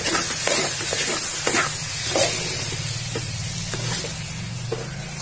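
Rice being stirred with a steel ladle through hot oily masala in a metal pot: a steady sizzle with short scraping strokes of the ladle against the pot about once a second, growing slightly quieter towards the end.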